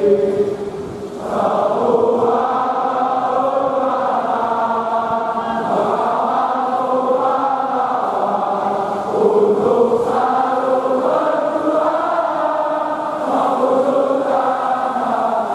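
A large crowd of football supporters singing a chant together in a stadium, many voices in unison. The singing drops briefly about a second in, then picks up again at full strength.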